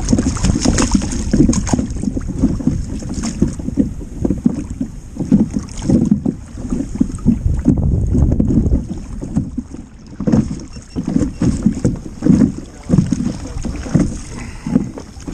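Water slapping against a sit-on-top kayak's hull in irregular low thuds, with wind buffeting the microphone.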